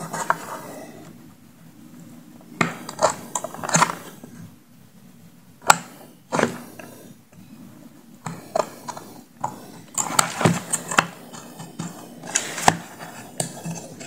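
Hard speaker parts being handled: irregular clicks, taps and knocks of a loose speaker magnet, a metal speaker frame and a plastic enclosure, with one sharp click a little before the middle.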